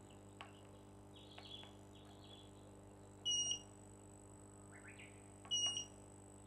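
Short, high, steady-pitched electronic beep sounding twice, a little over two seconds apart, over a faint low steady hum, with a few faint clicks before the first beep.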